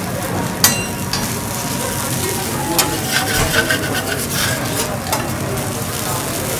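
Food sizzling on a hot teppanyaki steel griddle while a metal spatula scrapes and clinks against the plate. A sharp ringing clink comes about half a second in, and a run of scraping clicks follows in the middle.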